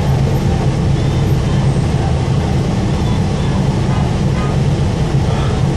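Steady low rumble of a city bus's engine and road noise, heard from inside the cabin.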